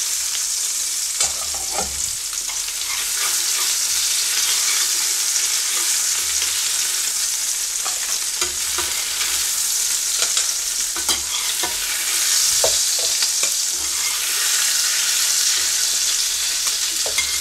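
Meatballs frying in hot sunflower oil, sizzling steadily, with scattered clicks and scrapes of a spatula against the frying pan as they are lifted out.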